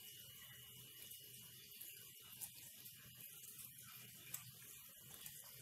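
Near silence: room tone with a faint steady hum and hiss, and a small click about four seconds in.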